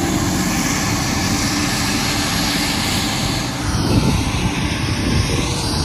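Turbofan engines of a Delta regional jet running as it moves along the runway: a loud, steady rushing noise with a sweeping, phasing whoosh about halfway through.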